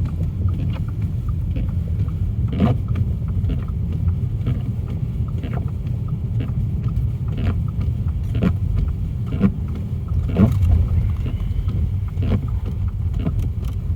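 Car driving through a snowstorm, heard from inside the cabin: a steady low road-and-engine rumble, with sharp ticks against the car at irregular intervals of about one to three seconds.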